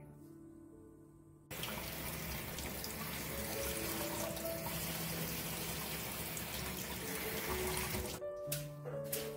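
Kitchen tap running and splashing onto perilla leaves in a steel bowl of water as they are rinsed by hand. It starts suddenly about a second and a half in and stops near the end, with background music under it.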